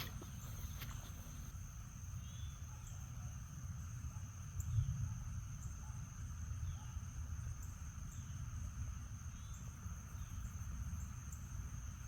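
Crickets trilling steadily in one high, unbroken tone over a low outdoor rumble, with faint short chirps repeating about every second and a half.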